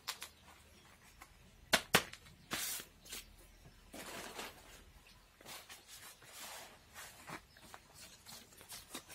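Quiet hand-handling sounds around a freshly repotted orchid in a plastic pot: two sharp clicks just under two seconds in, then soft, intermittent rustling and brushing.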